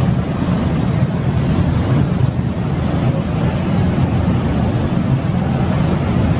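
Harbour ferry under way: its engines give a steady low rumble under the rushing wash of the churning wake.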